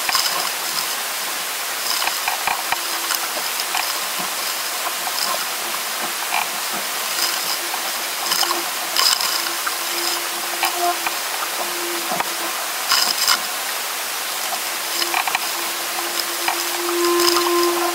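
Water rushing and hissing past a Musto Skiff's hull as it sails, with scattered knocks and clicks from the boat. A steady hum comes and goes from about eight seconds in and is loudest near the end.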